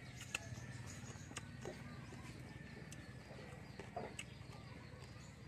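Faint outdoor background with a few short bird calls, about a second and a half in and again around four seconds, and a couple of light clicks near the start.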